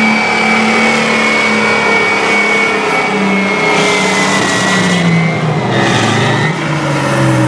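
Engine running steadily, its pitch dropping between about five and seven seconds in as it slows.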